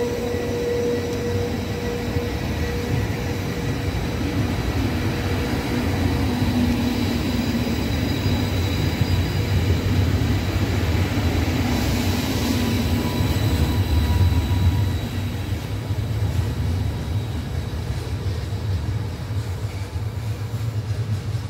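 Frecciabianca passenger train's coaches rolling along the track and away: a steady low rumble of wheels on rails, with a steady high whine that fades out over the first several seconds. The rumble eases as the train recedes and drops off near the end.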